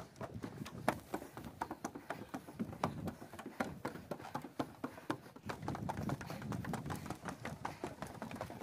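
Footsteps on wooden deck boards and stairs: shoes knocking and tapping on the boards in a quick, uneven run of steps.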